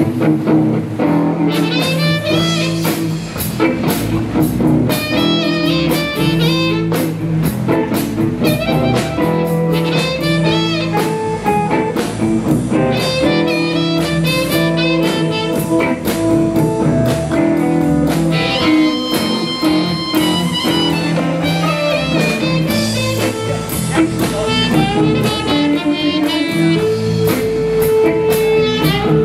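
Live blues band playing: electric guitars, bass and drum kit with a harmonica, the drums keeping a steady beat under sustained guitar and harmonica notes.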